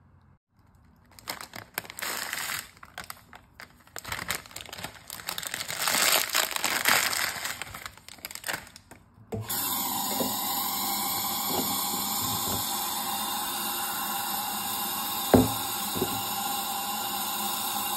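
Irregular crinkling and rustling as dry rice noodles are handled. About nine seconds in, a kitchen tap suddenly starts running steadily into a glass bowl, filling it to soak the noodles. There is a sharp knock against the bowl a few seconds before the end and a lighter one just after.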